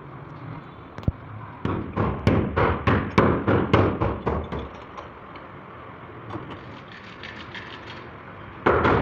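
A single thud, then a quick run of about a dozen sharp knocks, roughly three or four a second, that fades out after about three seconds. A loud, dense noise starts just before the end.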